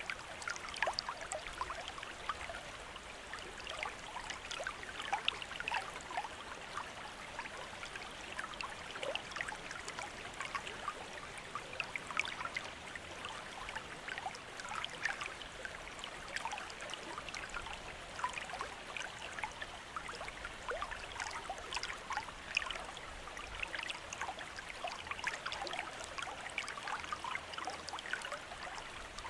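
Bamboo water fountain, water trickling and splashing steadily with many small irregular drips.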